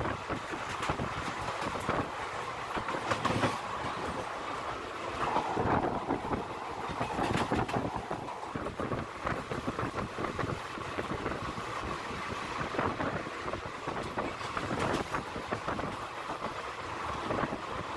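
Coach of the Kalinga Utkal Express running at speed, heard from its window: a steady rush of running and wind noise with the wheels clicking and clattering irregularly on the rails.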